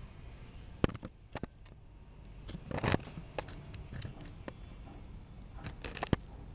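Close handling noise from a plastic Bruder toy garbage truck being worked by hand: scattered sharp plastic clicks and knocks, with a brief rustle about three seconds in and a quick cluster of clicks near the end.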